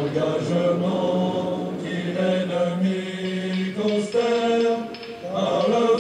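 Background music: a choral chant sung in long, held notes.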